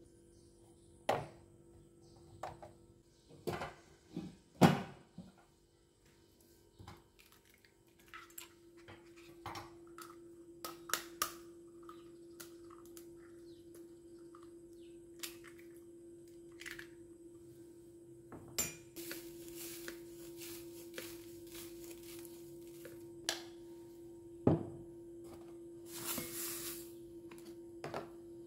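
Kitchen work: scattered knocks, thunks and clinks of utensils, pots and dishes being handled. A steady low hum comes in about six seconds in, and there are two short hissing stretches in the second half.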